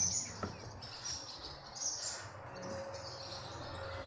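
Birds chirping outdoors, high calls repeating in short bursts, with a couple of faint knocks in the first half second; the sound cuts off abruptly at the end.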